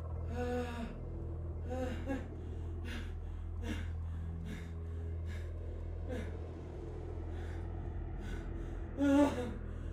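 A group of men laughing in bursts, with gasping, breathy laughs between short voiced ones; the loudest laugh comes near the end. A steady low hum runs underneath.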